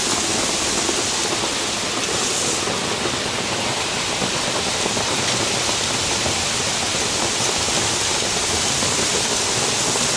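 Heavy rain pouring down onto a paved street and market-stall roofs, a loud, steady, dense hiss.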